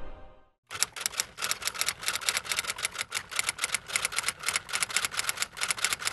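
Rapid typewriter keystroke sound effect, several sharp clicks a second, accompanying on-screen caption text being typed out. It begins just under a second in and stops suddenly near the end.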